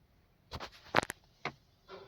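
A few short, sharp clicks, about four in two seconds, with quiet between: controls being worked in the car just before the engine is started.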